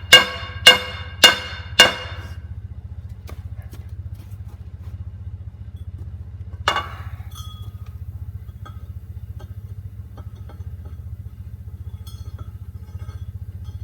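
Hammer blows on a cable tool drill bit over an anvil as its worn cutting edge is forged: four ringing strikes about half a second apart, then one lighter strike about seven seconds in. A steady low hum runs underneath.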